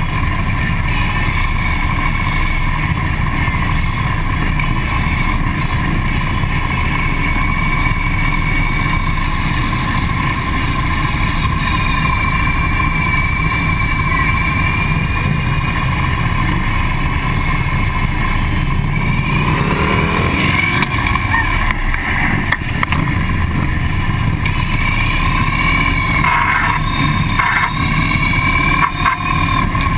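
Several Harley-Davidson V-twin police motorcycles running at low speed close together, heard as a steady low engine rumble from a camera mounted on one of the bikes. The engine sound shifts in pitch briefly about two-thirds of the way through.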